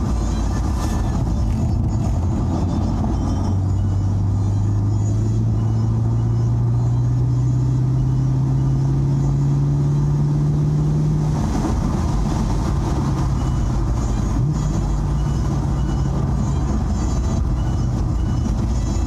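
Chevrolet Camaro SS's 6.2-litre V8 heard from inside the car, its pitch rising slowly and steadily for several seconds under hard acceleration, then falling back about halfway through and running steadier with a short blip. Constant road and tyre noise from the wet track runs underneath.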